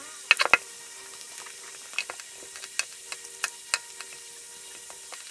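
Scattered sharp clicks and crackles over a steady hiss and faint hum, with a cluster of louder clicks about half a second in: a suction cup and plastic prying card working the glass back of a Huawei Mate 20 X loose.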